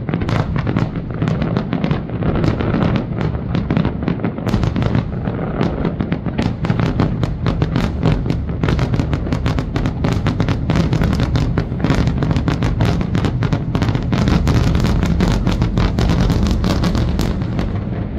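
Fireworks barrage: many aerial shells bursting at once in rapid, overlapping bangs and crackles over a continuous low rumble, easing off near the end.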